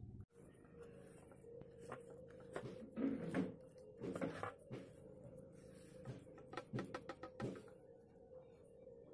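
Hands kneading damp slate-pencil powder into a dough and pressing it into a lump on a plastic plate: irregular soft knocks and taps of fingers and dough against the plate, busiest in the middle, with a quick run of taps near the end. A faint steady hum runs underneath.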